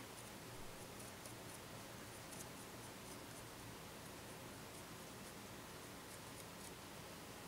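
Faint steady room hiss with light, scattered scratchy ticks from handling a small plastic model building wall.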